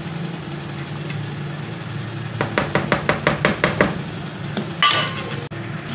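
Ladle knocking rapidly against a frying pan while stirring gravy: about ten quick clicks in a row, then a single ringing clink about five seconds in. A steady low hum runs underneath.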